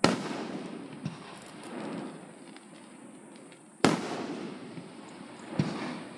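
Aerial firework shells bursting: a sharp boom right at the start and another just before four seconds in, each trailing off in a rumbling echo, with a smaller bang about a second in and another near the end.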